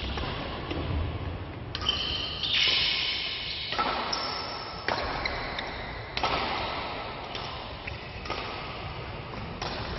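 Badminton rackets hitting a shuttlecock in a rally, about seven sharp hits roughly a second apart, echoing in a large hall, with high squeaks from players' shoes on the court floor between the hits.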